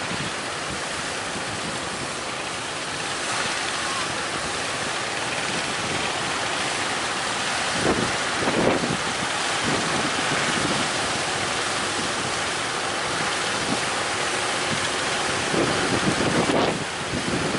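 Strong wind buffeting the microphone over the steady rush of rough sea waves, with heavier gusts at about eight seconds and again near the end.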